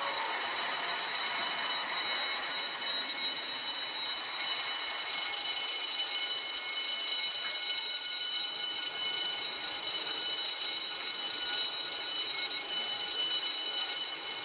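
Building fire alarm bell ringing continuously, a steady high-pitched ring that does not break. It is sounding for a false alarm set off by a resident's smoke detector.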